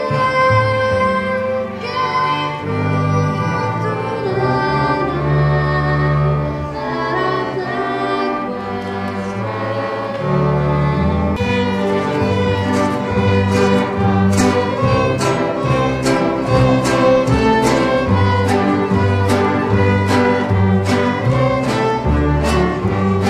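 Student string ensemble of violins, cellos and double bass playing. About halfway through the music changes to a piece with short, sharp note attacks in a steady rhythm.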